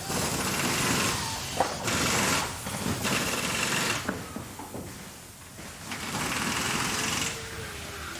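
Factory machinery running in stretches that start and stop, with a dip in the middle, and a few sharp mechanical knocks.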